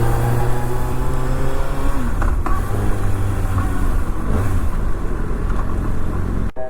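Kawasaki ZX-6R's 636 cc inline-four engine running on the move at light throttle, its pitch rising gently and then holding steady; the engine is new and still being run in. The sound cuts off abruptly near the end.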